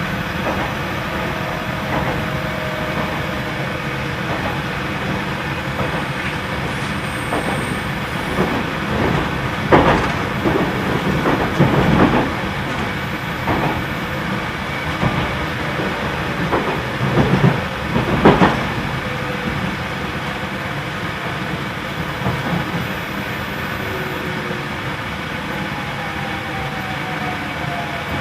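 Cabin running sound of a JR Central 313-series electric train: a steady rumble under the loud air conditioning, with wheels knocking over rail joints several times in the middle. Near the end a faint falling motor whine comes in as the train slows into a station.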